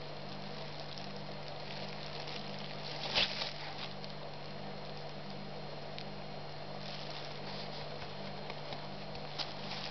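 Crinkling of a thin plastic glove and light handling noise as a cast-iron disc brake caliper is turned in the hands and a rubber dust boot is worked onto its piston bore, with one louder crinkle about three seconds in. A steady low hum runs underneath.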